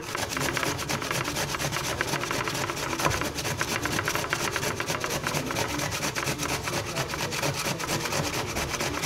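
Raw potato being grated on a metal box grater: quick, even rasping strokes, one after another.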